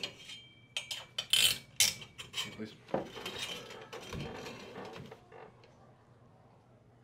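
A quick series of sharp metallic clicks and clinks, then a softer noisy stretch that fades out about five seconds in.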